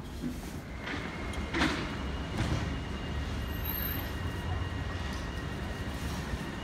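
Urban street ambience: a steady low traffic rumble, with a sharp clack about one and a half seconds in and a faint high whine through the middle.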